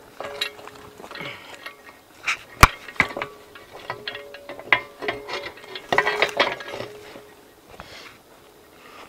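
Footsteps crunching over the forest floor, with twigs and sticks cracking underfoot and one sharp snap about two and a half seconds in. A faint low hum comes and goes.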